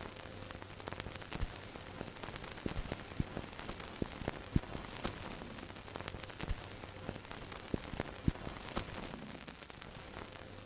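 Steady hiss with irregular crackling clicks scattered through it.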